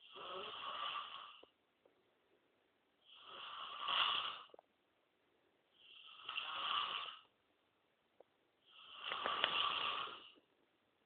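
Snoring: four long, noisy snores about three seconds apart, each swelling and fading over about a second and a half.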